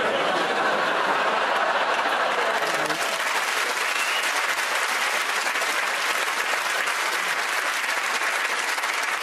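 Studio audience clapping, a steady dense applause that holds level throughout.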